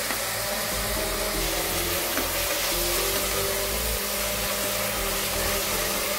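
Background music over a steady sizzling hiss of sliced onions frying in an aluminium pressure cooker.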